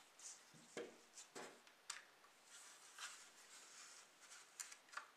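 Faint rustling and rubbing of gloved hands handling and turning a dirt-caked diecast model car, with a few sharp little clicks of its metal body and parts.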